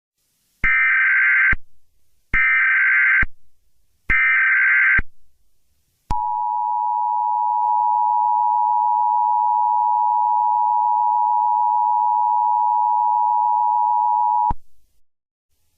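Emergency Alert System alert opening. It begins with three bursts of SAME header data tones, each just under a second long and evenly spaced. About six seconds in, the steady two-tone EAS attention signal sounds for about eight seconds and then cuts off suddenly.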